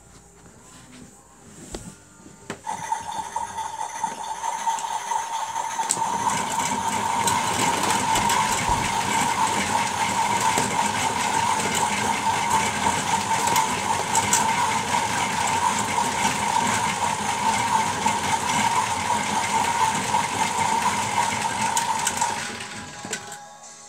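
Toy washing machines running their spin cycle: a steady whirring whine with a fast rattling clatter, starting a couple of seconds in, building up over a few seconds, then holding steady until it stops shortly before the end.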